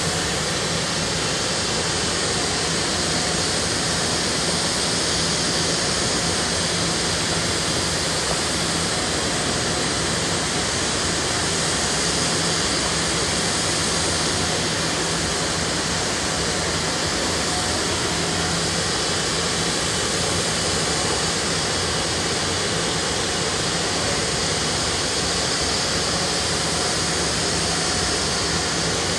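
Steady industrial roar from a paper mill, an even rushing noise with a faint low hum running through it.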